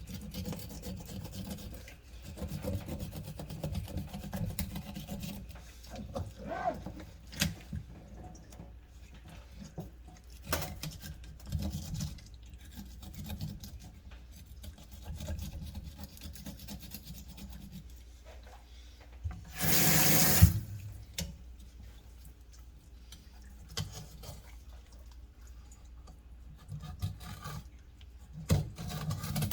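Filleting knife scraping and cutting through a sea bass on a cutting board, with scattered small knocks. About twenty seconds in comes a loud rush of noise lasting about a second.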